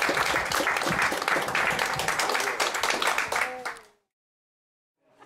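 Audience applauding, with a few voices over it, fading out about four seconds in and then cutting to dead silence.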